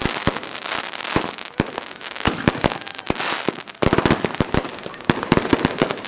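Consumer fireworks going off all around: a continuous string of sharp bangs and pops over dense crackling, thickest about four seconds in.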